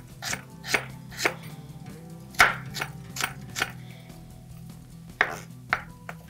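Knife chopping carrot on a cutting board: about eleven sharp, irregularly spaced strokes, the loudest about two and a half seconds in, with a short pause near the middle.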